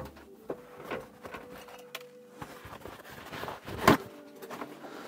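Toothbrush scrubbing a freshly soldered circuit board with isopropyl alcohol to clean off flux, heard as irregular light scrapes and clicks, with a louder knock about four seconds in.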